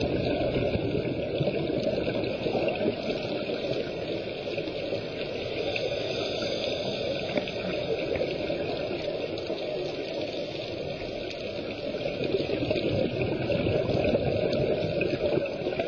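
Underwater ambience picked up through a camera's waterproof housing: a steady, muffled rush of water with fine crackling, swelling a little near the end.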